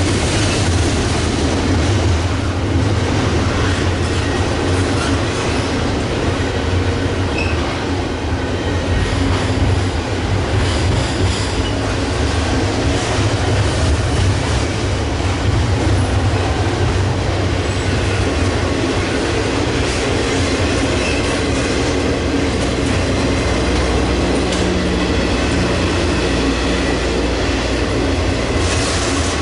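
Double-stack intermodal freight train's well cars rolling steadily across a bridge overhead: a continuous loud rumble of steel wheels on rail and bridge.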